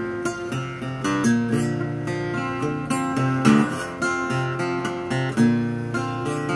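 Steel-string acoustic guitar flatpicked: a quick run of single picked notes mixed with strummed chords, each note starting with a sharp pick attack.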